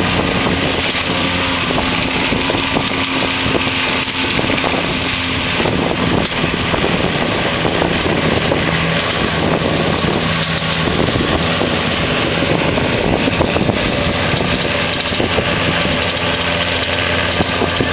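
Case tractor engine running steadily as it pulls a Taarup trailed forage harvester and silage trailer, its low engine hum growing fainter in the second half as the outfit moves off. Wind noise on the microphone throughout.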